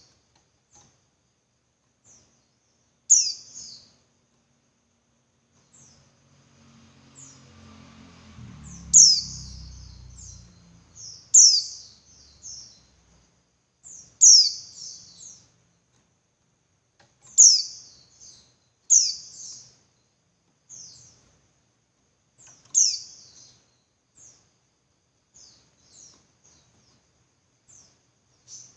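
Female white-eye (pleci) calling to a male: short, high, sharp downward-sweeping chirps every two to three seconds, with fainter chirps between. A faint low rumble runs for a few seconds about a third of the way in.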